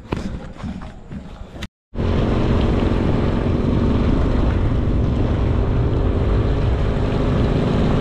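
A short quieter stretch ends in an abrupt cut about two seconds in; then a Bajaj Pulsar NS200 motorcycle's single-cylinder engine runs steadily at riding speed under loud wind rushing over the microphone.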